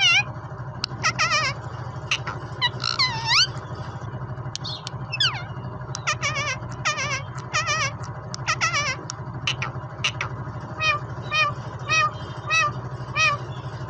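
Indian ringneck parakeet calling: bursts of short, shrill, wavering squawks and chirps. Near the end comes a quick run of repeated short chirps about twice a second. A steady low hum runs underneath.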